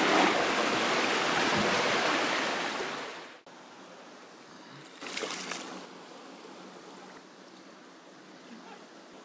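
Shallow stream water: loud splashing and rushing for the first three seconds, which fades and then cuts off abruptly, then the quieter steady trickle of the stream with one short splash about five seconds in.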